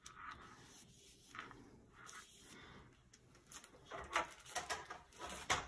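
Faint paper rustling and soft taps as fingers press a glued paper medallion flat onto a paper-wrapped chocolate bar, with a few sharper rustles and clicks in the last couple of seconds.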